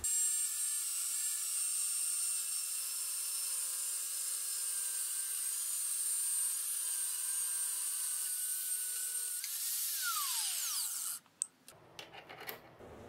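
Grinder with a thin abrasive cutoff wheel cutting through a high-speed steel tool blank: a steady high-pitched hiss and whine. About nine and a half seconds in the cut ends and the wheel spins down in a falling whine, stopping about 11 s in. A few faint clicks follow.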